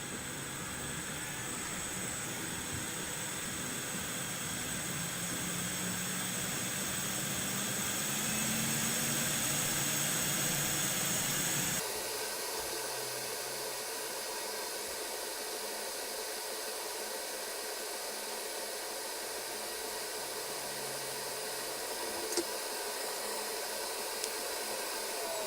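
Hot air rework station blowing a steady hiss of air while low melt alloy is worked into solder joints. About halfway through, the sound changes abruptly and its lower hum drops away.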